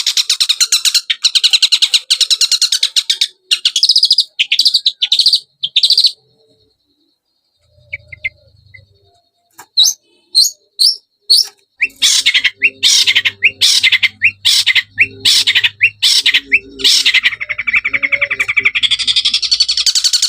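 A songbird lure recording meant to set a cendet (long-tailed shrike) singing: rapid, buzzy, high trills. They break into short phrases and stop for a few seconds around the middle, return as a run of separate sharp notes, then run together into a continuous trill again.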